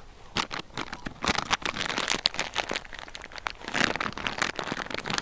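Irregular crinkling and crackling rustle, dense and close, thickest about a second in and again near the end.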